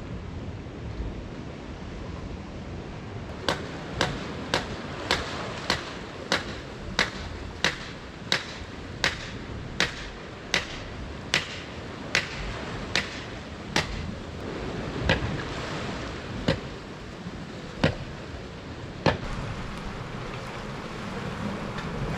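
About sixteen sharp knocks, evenly spaced at roughly one and a half a second and slowing slightly, then four more spread further apart. They sound over a steady rushing background noise.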